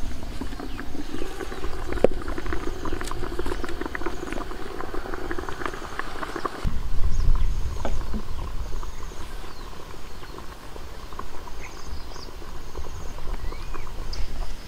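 Steamed banana-leaf parcels handled and set down on a woven bamboo tray: leaf rustling with small taps and clicks, busiest in the first half.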